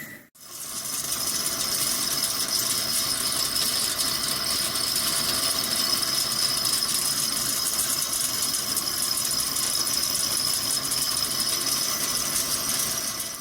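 Large CNC lathe (Hankook PROTEC-9NC) turning a steel forging with a carbide insert: a steady cutting noise with a constant high whine.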